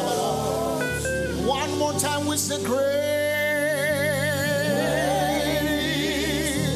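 Live gospel praise music: a singer holds a long, wavering note from about three seconds in, over sustained keyboard chords and bass.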